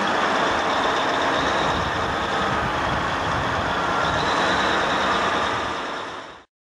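A heavy machine running steadily as a loud mechanical din, fading away and cutting off about six seconds in.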